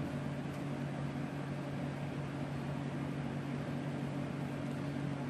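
Steady electrical hum and fan-like drone from running bench equipment, with a low, even tone and no changes.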